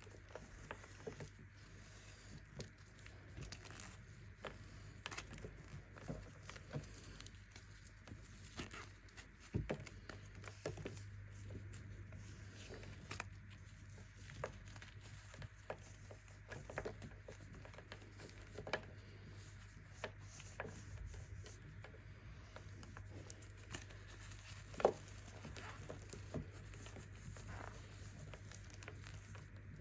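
Baking soda being crushed, giving irregular crunches and crackles, with one louder crunch late on. A steady low hum runs underneath.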